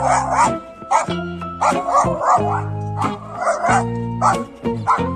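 A dog barking and yipping over background music with long held notes.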